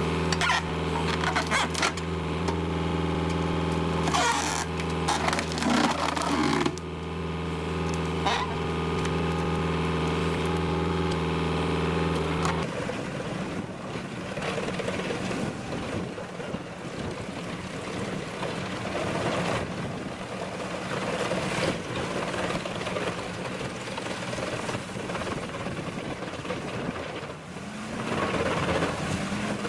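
A machine engine running with a steady hum, with scattered knocks. About twelve seconds in it changes abruptly to a rougher, noisier machine sound.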